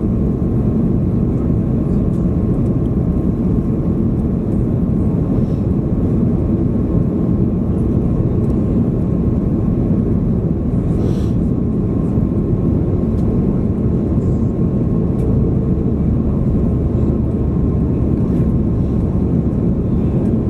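Airbus A330-343 airliner with Rolls-Royce Trent 700 engines, a steady low rumble with a faint thin whine, holding constant.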